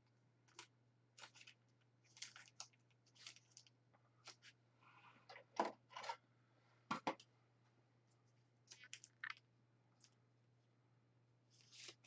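Trading cards being handled, flipped and slid against each other: a scatter of faint, short clicks and rustles, with a low steady hum underneath.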